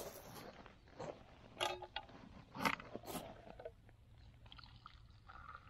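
About five sharp knocks and clinks with rustling in between, from handling a metal camping pot and tea things while brewing tea, then softer scraping near the end.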